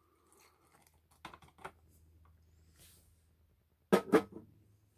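Faint water being poured from a glass measuring cup into a freeze-dried chocolate mousse pouch, followed by a few small clicks of handling. About four seconds in come two sharp knocks.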